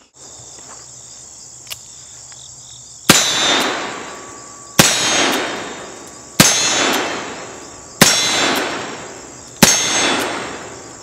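Five shots from a .44-40 single-action revolver (a replica Remington cartridge conversion) firing black-powder cartridges, about a second and a half apart, each with a long echoing tail. Insects buzz steadily in the background.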